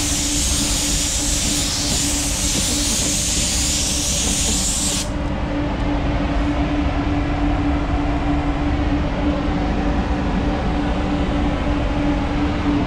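Gravity-feed paint spray gun hissing as compressed air atomizes paint, cut off sharply about five seconds in when the trigger is released. Under it, the paint booth's ventilation runs with a steady hum and low rumble.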